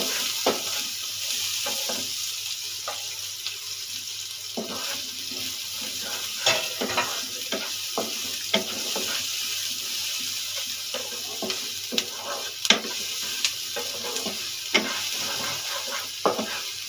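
Chopped onions sizzling in hot oil in a non-stick kadai, freshly added and frying to soften. A wooden spatula stirs them, knocking and scraping against the pan in irregular taps. The sizzle is loudest at the start and eases off over the first few seconds.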